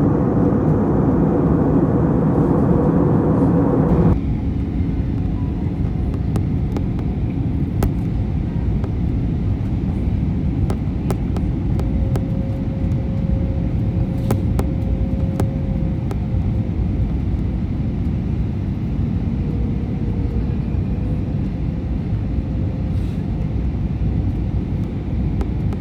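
Steady roar of jet engines and airflow heard inside an airliner cabin in flight. About four seconds in, the sound changes abruptly from a brighter roar with a humming tone to a lower, duller rumble, with a few faint clicks.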